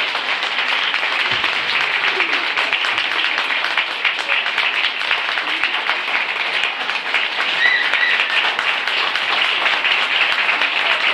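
Audience applauding steadily, with a brief high call from someone in the crowd about two-thirds of the way through.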